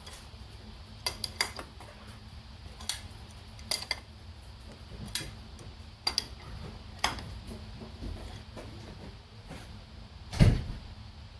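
Soft hammer tapping the rear main seal wear ring onto the 7.3 Powerstroke crankshaft flange: a string of irregular, light metallic taps about a second apart, with one heavier thud near the end.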